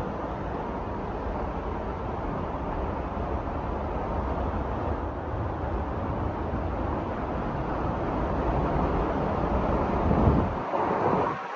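Steady roar of a waterfall, a dense rushing of falling water that cuts off abruptly near the end.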